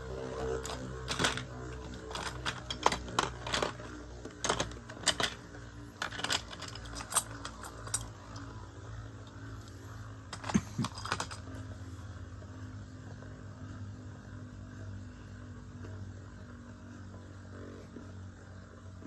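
Sharp plastic-and-metal clicks from Metal Fight Beyblade tops and parts being handled, a dozen or so over the first eight seconds, then a short clatter about ten and a half seconds in. After that only a low steady hum remains.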